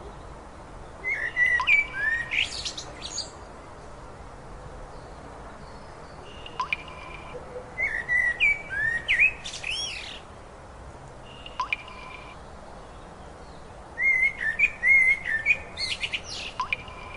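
A songbird singing three phrases several seconds apart, each a quick run of whistled notes and rising sweeps, over a steady low hiss.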